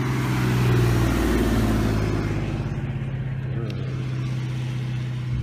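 An engine running steadily close by: a low droning hum with a hiss over it, a little louder in the first two seconds.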